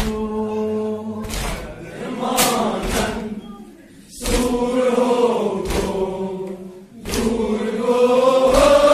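Men's voices chanting a noha, a Shia lament, holding long sung notes, with a short break a few seconds in. Sharp chest-beating (matam) thumps fall about once a second through the chant.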